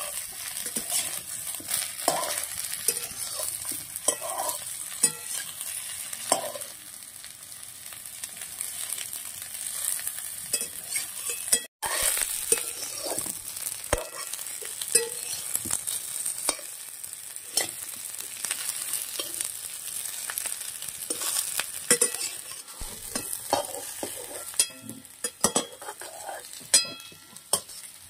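Spiny gourd pieces sizzling as they fry in a metal wok, with a metal spatula scraping and clicking against the pan as they are stirred.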